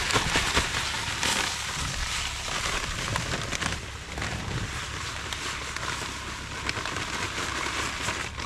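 Heavy rain pattering, a dense crackle of countless small drops with no rhythm.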